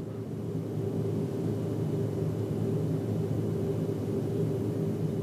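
Steady low hum and rumble of background room noise, with a few steady low tones and no speech.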